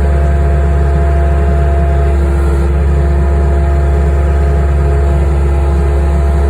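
Skid steer engine running steadily at a constant speed, a loud low drone with a steady hum above it.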